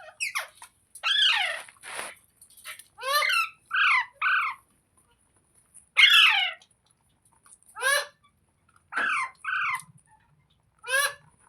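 Pet rose-ringed parakeet (green Indian ringneck parrot) squawking: about a dozen short, harsh calls in irregular bursts, with a longer call about a second in.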